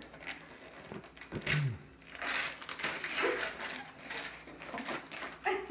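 Wrapping paper and tissue paper rustling and crinkling as a small wrapped gift box is handled, torn open and its paper pulled out, with a brief thump about a second and a half in.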